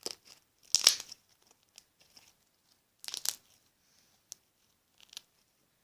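Slime being squished and stretched by hand, with short wet crackles and pops; the two loudest bursts come about a second in and about three seconds in, with a few single clicks between.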